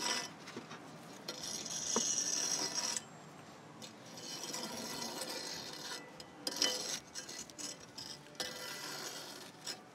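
Flat-bar steel fire hook scraping hot coals across the floor of a cob oven and raking them out into a metal bucket, in several scratchy scraping spells with a few sharp knocks.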